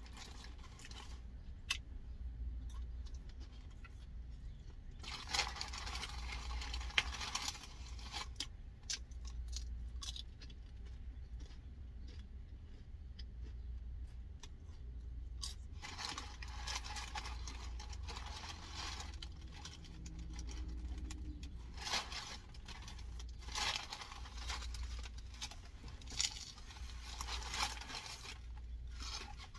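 Someone eating a hard-shell crunchy taco: irregular bouts of crunching and wrapper-paper rustling, with pauses between them, over a low steady rumble.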